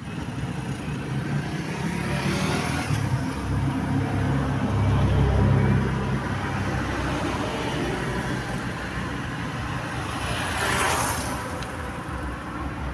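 Large vehicle engine, most likely a bus, running with a low rumble that swells around five seconds in, with a brief hissing rush near the end; no horn melody sounds.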